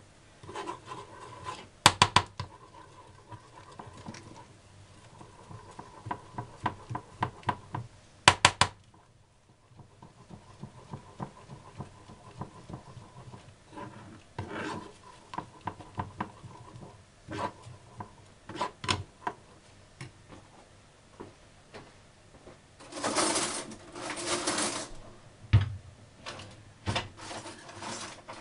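Metal spoon knocking and scraping against a small stainless-steel saucepan as sugar is stirred while it melts for caramel, in scattered sharp clinks, two of them loud. Near the end, a longer stretch of rubbing and handling noise.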